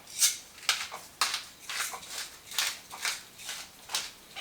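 Hand pepper mill grinding black pepper, a rasping crunch repeated about twice a second as the mill is twisted back and forth, about nine strokes.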